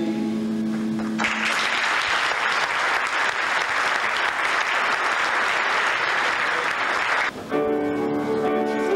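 The song's final held note ends about a second in, and the theatre audience applauds for about six seconds before the applause cuts off suddenly. Instrumental music, piano-like notes, starts near the end.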